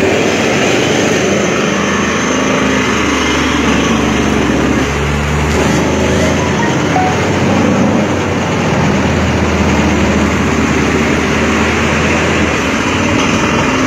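Diesel machinery of a truck-mounted water well drilling rig running steadily: a loud, even low drone with broad mechanical noise over it.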